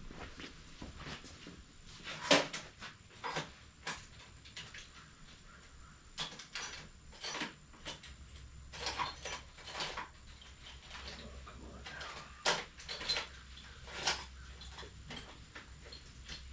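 Irregular clicks, knocks and clatter of hand tools being rummaged through in search of a pointed tool, with the sharpest knock about two seconds in. A low hum comes in about halfway.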